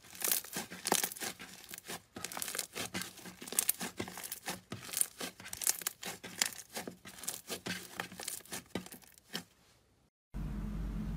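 Purple slime squeezed and kneaded by hand: dense, irregular sticky crackles and pops as air pockets burst and the slime pulls off the fingers. The crackling fades out near the end, and a steady low hum then takes over.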